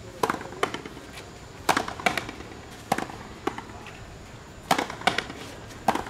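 Frontenis rally: the rubber ball cracking sharply off strung racquets and the front wall, the cracks coming mostly in pairs, a new pair every second or so.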